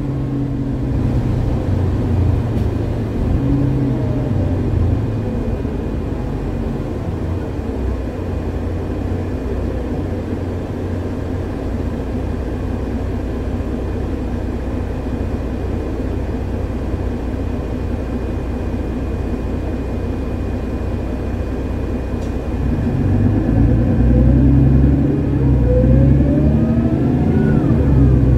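Mercedes-Benz Citaro G articulated bus's OM906hLA six-cylinder diesel, heard from inside the passenger cabin. It runs steadily through the middle, then picks up and pulls harder near the end, with a whine rising in pitch.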